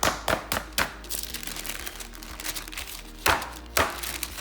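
Chicken breast being pounded flat through parchment paper: four quick blows in the first second, the paper crinkling, then two heavy blows near the end.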